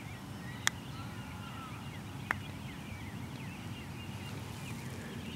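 Faint birds chirping over a low steady rumble, with two sharp clicks, the first under a second in and the second about a second and a half later.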